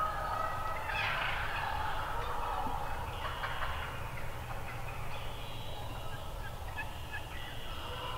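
Eastern wild turkey toms gobbling several times, a loud gobble about a second in and more about three seconds in and near the end.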